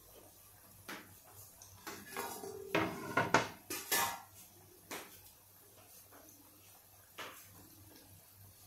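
Steel and ceramic plates and utensils clinking and knocking as they are set down and moved, a short cluster of clatter about three to four seconds in, with single knocks before and after.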